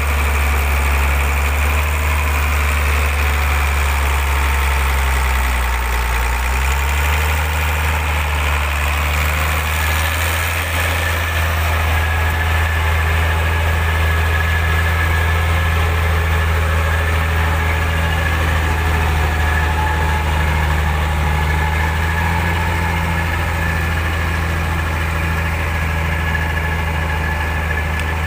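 Heavy Hyundai logging truck's diesel engine running steadily with a deep drone. Its speed drops briefly about six seconds in, then picks back up and holds.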